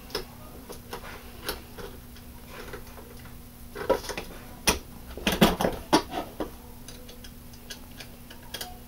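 Scattered light clicks and knocks of a pneumatic cylinder and metal pipe parts being handled and fitted together, with a cluster of them about five to six and a half seconds in. A faint steady hum runs underneath.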